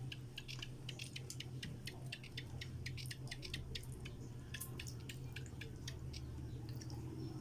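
Eating noises: many quick, irregular wet clicks of chewing and lip smacking, over a steady low hum.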